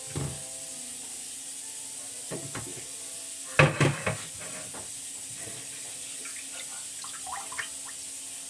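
Hands sorting small river shrimp in a container: a few short knocks, clatters and wet handling sounds, the loudest a quick cluster about three and a half seconds in, over a steady hiss.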